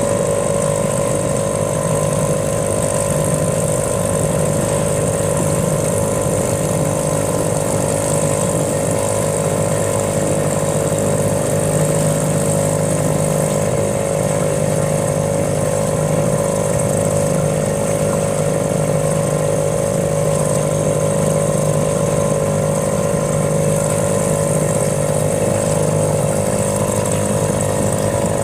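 A small boat's motor running at a steady speed, an even drone with a constant whine and no change in pitch.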